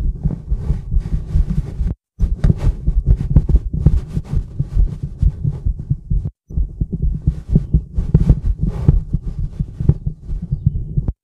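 A woman's heartbeat picked up by a stethoscope microphone pressed to her chest: repeated deep thumps, with scratchy rubbing noise from the chest piece against skin and fabric. The sound cuts out completely twice for a split second.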